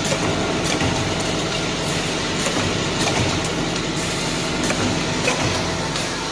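Automatic bottle filling and capping line running: a steady mechanical hum and hiss with irregular sharp clicks from its mechanisms.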